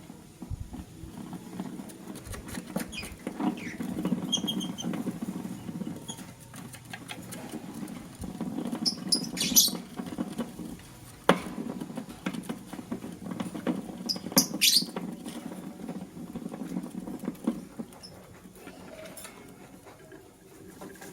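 Lovebirds pecking and scrabbling at food, a dense rapid pattering that stops a few seconds before the end. A few short high chirps come around the middle, along with one sharp click.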